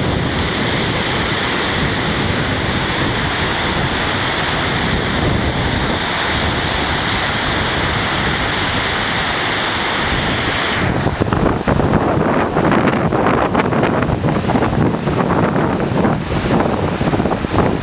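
Lake Huron surf: large wind-driven waves breaking along the shore under strong wind. About eleven seconds in it turns gustier, with wind buffeting the microphone in uneven blasts.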